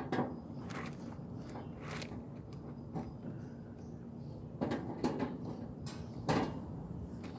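Sheet-metal access panel of a Rheem air-conditioner condenser being worked loose by hand and screwdriver: scattered clicks, scrapes and knocks of metal, the loudest about five and six seconds in.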